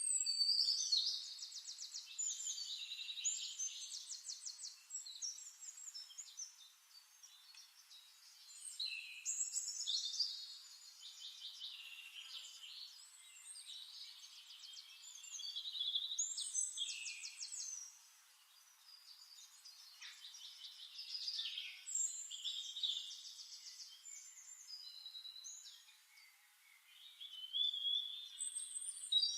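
A songbird singing about five long, high-pitched song phrases, each full of rapid trills and quick sweeps, with short pauses between them.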